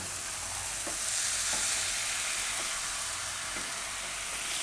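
Dahi poha with yogurt and vegetables sizzling in a nonstick wok as it is stirred with a slotted wooden spatula, a steady hiss with a few light taps and scrapes of the spatula against the pan.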